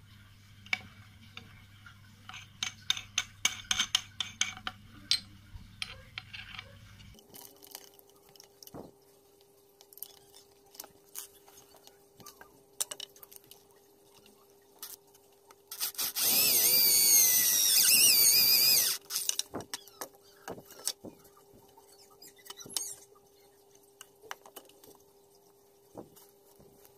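Electric hand drill running and boring a hole into plywood for about three seconds, starting just past the middle, its pitch wavering under load. Before and after, scattered clicks and knocks of the drill and parts being handled.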